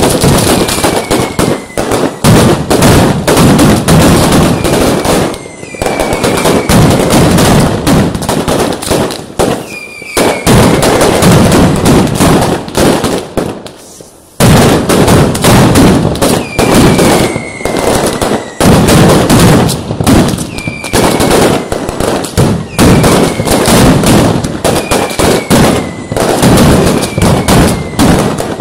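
Mascletà: strings of ground firecrackers going off in a rapid, continuous, very loud barrage of bangs, with short falling whistles every couple of seconds. The barrage thins briefly a little after halfway, then comes back at full strength.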